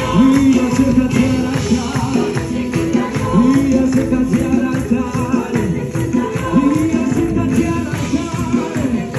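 Live worship music with a tambourine shaking along and a voice singing over the band.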